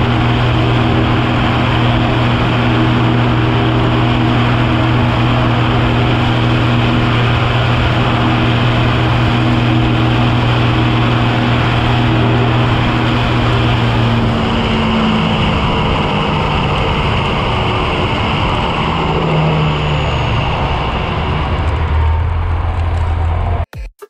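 John Deere 6910 tractor's six-cylinder diesel engine running steadily under way on the road. About two-thirds of the way in the engine note drops lower and becomes less even. Near the end it cuts off sharply into a short pulsing electronic outro sound.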